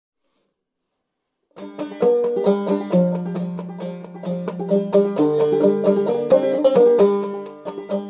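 Open-back banjo with a skin head, played clawhammer style in sawmill tuning; it starts about a second and a half in, after a silent opening.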